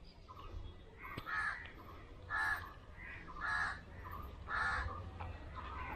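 A bird calling repeatedly in a series of harsh calls, the strongest four about a second apart.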